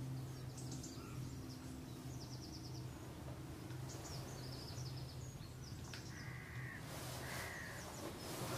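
Birds calling across open water: quick high chirps and trills of small birds throughout, and two short louder calls about a second apart near the end, over a faint steady low hum.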